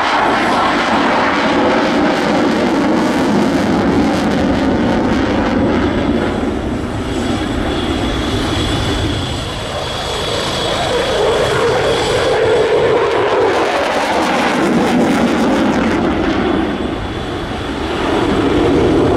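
Aircraft engine noise from a display aircraft in flight: a loud, continuous engine sound that swells and eases slightly as the aircraft moves.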